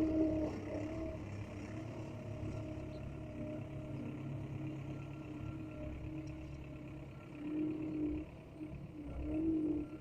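A motor running steadily with a low hum and a droning tone that swells louder twice near the end.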